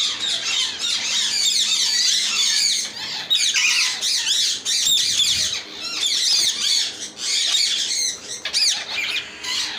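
Many caged parrots squawking and chattering together in a dense, continuous chorus of high overlapping calls, with brief lulls.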